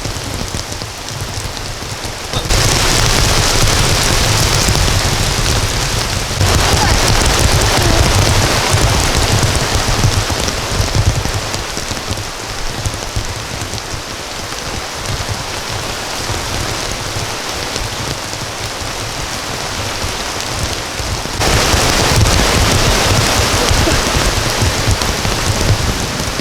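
Heavy rain falling steadily. Its level jumps suddenly louder about two and a half seconds in and again near the end.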